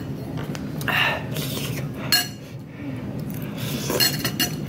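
Metal fork clinking and scraping against a bowl of noodles, with a few sharp clinks, the loudest about two seconds in.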